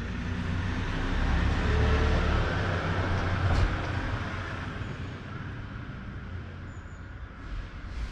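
A motor vehicle driving past, its low engine rumble building to a peak about two seconds in and fading away by about five seconds, with a single sharp click partway through.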